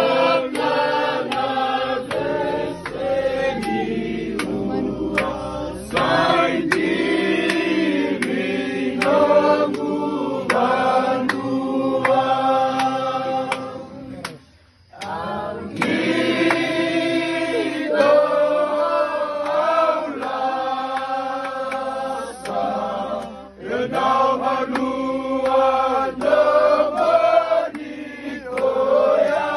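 A large group of voices singing together in parts, with a short break about halfway through before the singing starts again.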